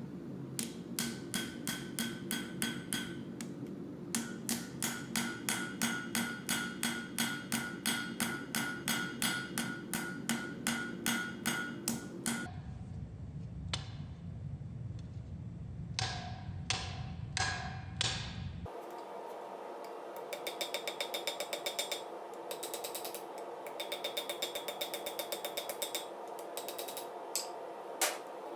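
Blacksmith's hammer striking steel on an anvil in a fast, even rhythm of about four blows a second, each with a metallic ring. The hammering comes in several runs, with a short stretch of a few slower blows in the middle.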